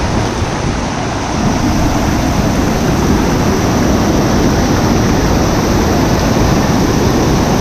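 Waterfall cascades rushing steadily: an even, unbroken noise of falling water, heaviest in the low range.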